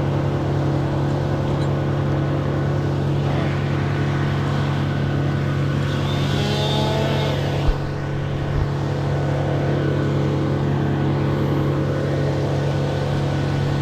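An engine running steadily at constant speed, with two short knocks a little past the middle.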